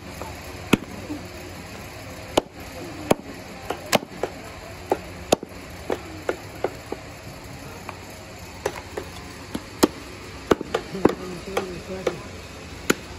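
Butcher's cleaver chopping buffalo meat on a round wooden chopping block: sharp, irregular chops, roughly one or two a second.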